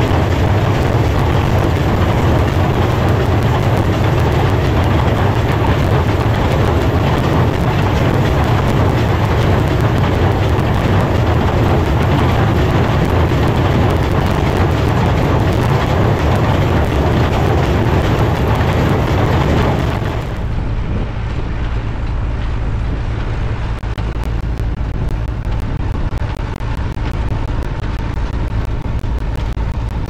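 Tractor and New Holland Hayliner 317 small-square baler running steadily, picking up a hay windrow, as a loud continuous machinery clatter with a deep engine drone. About 20 seconds in the sound drops abruptly to a quieter, lower tractor engine drone.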